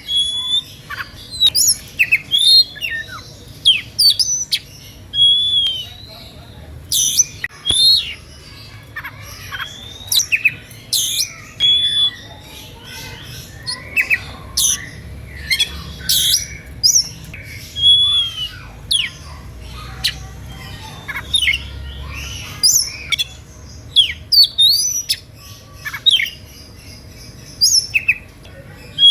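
Oriental magpie-robin (kacer) in full song: a fast, varied run of sharp whistles, rising and falling slurs and harsh notes, delivered in bursts with short gaps. It is an excited song of the kind that provokes other magpie-robins within hearing into singing back.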